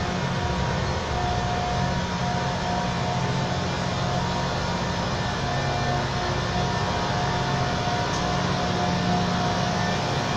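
Rail-grinding train at work, its grinding stones running on the rails: a steady grinding rush with a low drone and a thin steady whine.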